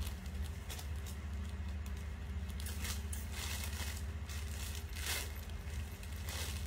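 Clothing fabric rustling as garments are pulled off over the head and stepped out of, in a few short rustles over a steady low hum.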